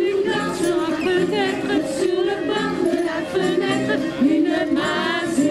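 A woman singing a French song unaccompanied, her voice wavering with vibrato, with a group of voices singing along.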